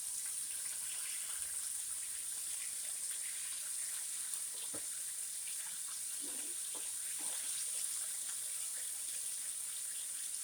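Chicken pieces deep-frying in hot oil: a steady high sizzle, with a few light knocks or pops about halfway through.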